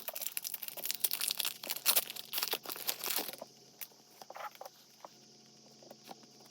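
Foil wrapper of a Pokémon card booster pack being torn open and crinkled for about three and a half seconds, followed by a few light taps and clicks.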